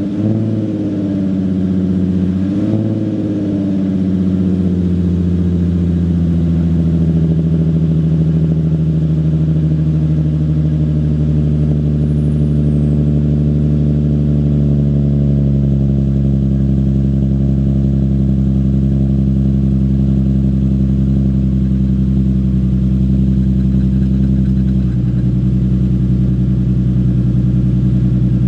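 Nissan 350Z's 3.5-litre V6 running through newly fitted, not yet broken-in Berk high-flow catalytic converters. It revs briefly twice in the first few seconds, then idles steadily with its pitch slowly settling lower. Its note is a little quieter and throatier than with the test pipes.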